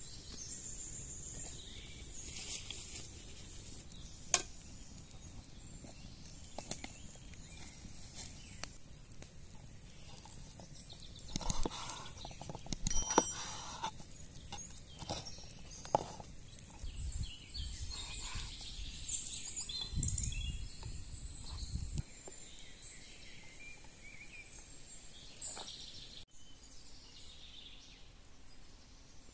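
Birds chirping over forest ambience, with scattered sharp clicks and taps.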